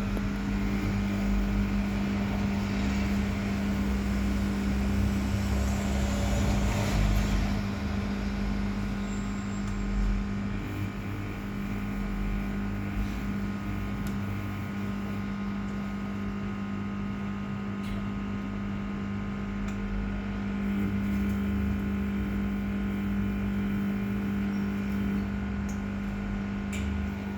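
Samsung WF0600WJV front-loading washing machine running: a steady motor hum with uneven low rumbling from the drum.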